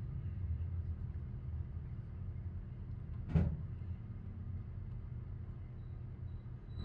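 Steady low background rumble with a single sharp knock about three and a half seconds in.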